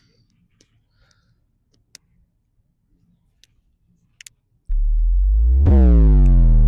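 Near silence with a few faint clicks, then about three quarters of the way in a sudden, loud synthesized tone starts: a deep steady hum with overtones sliding down in pitch.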